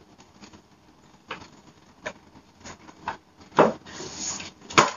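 Jackets being pulled out of a crowded wardrobe: scattered knocks and clicks with a rustle of fabric about four seconds in, and a sharp click near the end.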